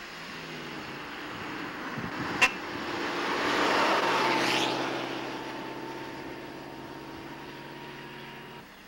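An antique sedan drives past: its engine and tyre noise grow as it approaches, peak as it passes close about four seconds in, then its steady engine hum fades as it drives away. A single sharp click comes just before the pass.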